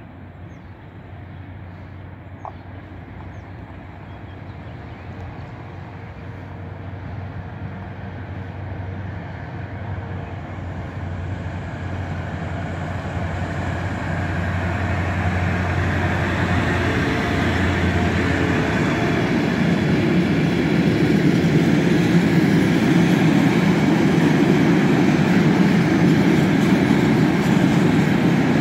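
Bombardier TRAXX locomotive hauling a freight train of tank wagons, pulling away and drawing closer, with a steady low hum that grows louder. From about two-thirds in, the rumble and rattle of the tank wagons rolling past close by takes over.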